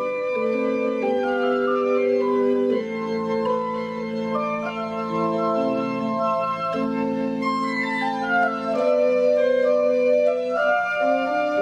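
Pipe organ playing a Baroque piece: several voices of held notes moving against each other, with a quick falling run of notes about eight seconds in.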